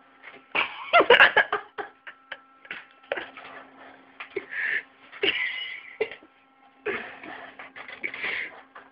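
Clicks and knocks from a desktop PC's CD-ROM drive tray as a hand pushes at it, the loudest cluster about a second in, with irregular breathy bursts of noise over a faint steady hum.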